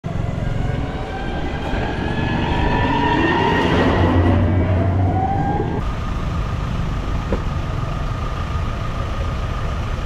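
Motor vehicles running in a busy market street, with a heavy low engine rumble; about four to six seconds in, an engine's pitch climbs as it speeds up. After an abrupt cut a little before six seconds, a steady high whine sits over the rumble.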